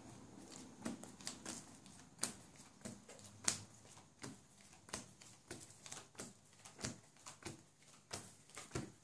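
Playing cards being dealt one at a time onto a tabletop, each landing with a light click, about two a second.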